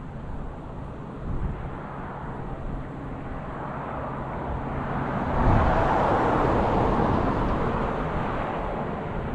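A vehicle engine running steadily as it passes close, its sound swelling to its loudest a little past halfway and then slowly fading.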